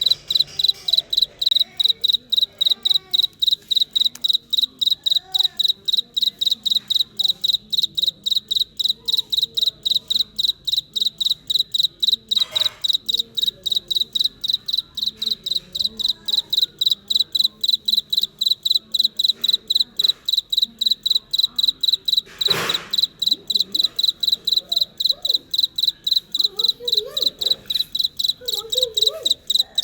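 A cricket chirping steadily, a high pulsed note repeated about four times a second. A sharp knock cuts across it about two-thirds of the way in.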